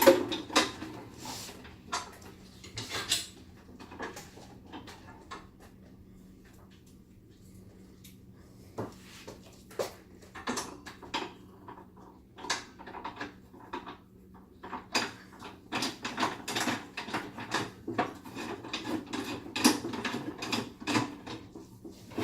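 Scattered clicks, clinks and knocks of a 1-800 bulk candy vending machine's parts being handled and fitted together by hand, sparse and quiet for a few seconds in the middle and busier again toward the end.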